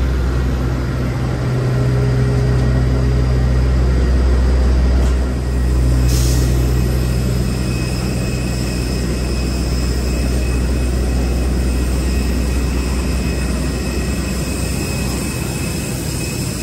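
Airport apron bus's engine running with a steady low hum. From about six seconds in, a steady high whine from the parked jet airliner joins in and carries on while the low hum eases.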